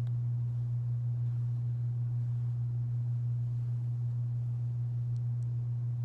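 A steady, low-pitched hum holding one constant tone, with no change in pitch or level.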